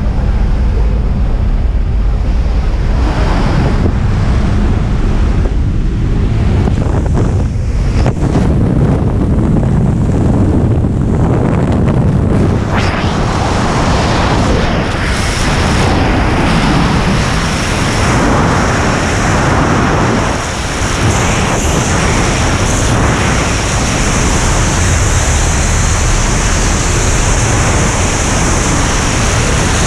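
Loud, steady wind noise on the skydiver's camera microphone: at first the slipstream and engine of the jump plane at its open door, then, after the exit partway through, the fuller, brighter rush of freefall wind.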